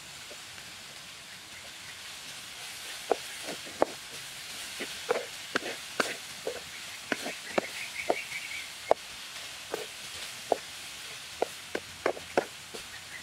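Wooden spatula knocking and scraping against a metal wok while leafy greens are stir-fried. It makes irregular sharp knocks, about two a second, over a faint steady sizzle.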